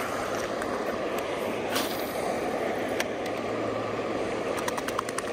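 Steady rushing of floodwater pouring over a low creek dam, with no rise or fall.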